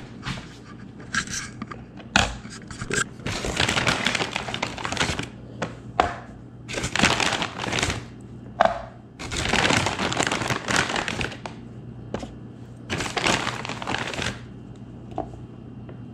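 A plastic food bag of breaded chicken tenders crinkling in several spells of a second or two as pieces are pulled out, with a few sharp knocks as they are set on a paper towel on a kitchen scale.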